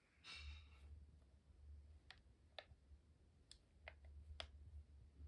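Near silence with about five faint, sharp clicks spread over a few seconds and a little low handling rumble, as the foam RC plane and its transmitter are handled.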